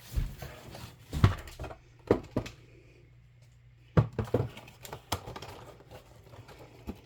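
Packaging of a diamond painting kit being handled: scattered sharp knocks and rustles as the bag and its contents are moved about, with a quieter stretch in the middle.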